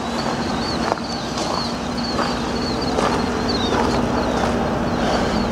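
The V8 engine of a 2009 Chevrolet Avalanche idling with a steady low rumble, with footsteps crunching on gravel about every second and small high chirps above.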